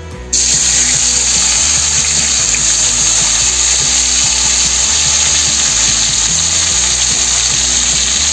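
Sliced tomatoes sizzling in hot mustard oil in a steel kadai. The loud, steady hiss starts abruptly just as they go in.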